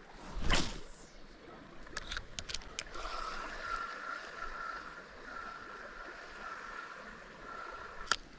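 A fishing rod swishing through the air once in a cast, about half a second in, over the steady rush of creek water, with a few small clicks a couple of seconds in.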